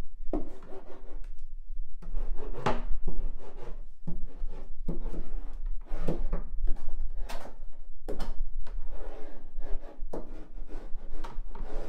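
Hand roller pushed back and forth over foil-faced butyl sound-deadening mat on a ribbed steel van floor, pressing it down. It makes repeated rasping rubbing strokes, irregular, about one a second.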